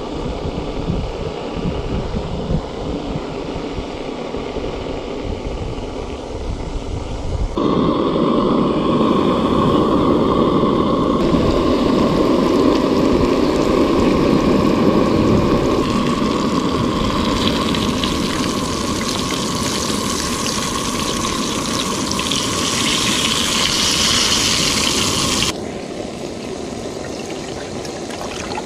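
Fish fillets sizzling and bubbling as they deep-fry in hot oil in a steel pan on a small camp stove, a dense loud hiss that fills most of the stretch. Near the end it gives way to water splashing as it is poured from a plastic bottle into a steel cup.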